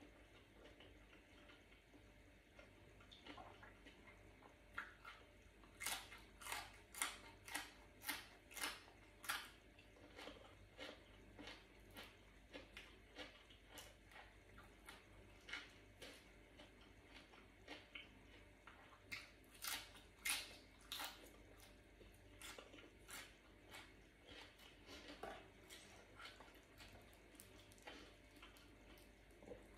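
Close-miked crunchy chewing of crisp raw green vegetables. It comes in two runs of sharp crunches, about two a second, with quieter chewing between.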